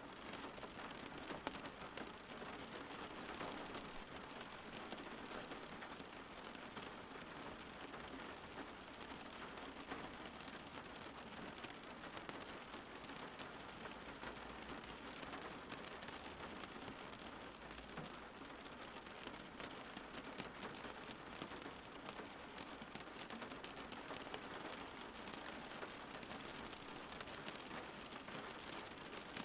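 Steady rain falling and pattering on surfaces, a dense even hiss with scattered drops and a faint low rumble underneath.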